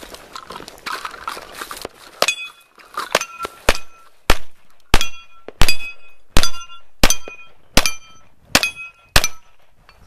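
A rapid string of handgun shots at steel targets, about eleven shots a little over half a second apart, each followed by the bright ring of the struck steel plate.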